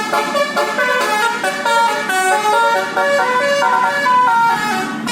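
Indonesian bus's basuri telolet musical horn playing a fast melody of quickly changing notes.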